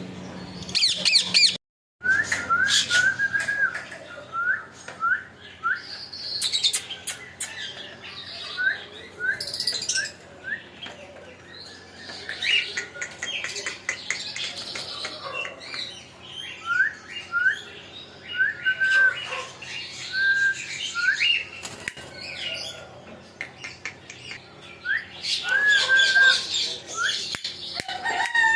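Pet parrot making short rising chirps over and over, with scratchy noisy calls in between.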